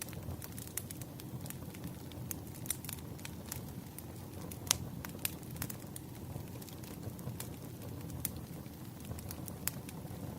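Wood fire burning, with a steady low rumble and irregular sharp crackles and pops of the logs. One pop about halfway through is louder than the rest.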